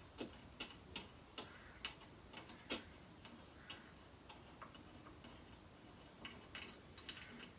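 Faint, scattered light clicks and taps, about one a second for the first three seconds and sparser after, from the sander's small work rest being handled and taken off. No motor is running.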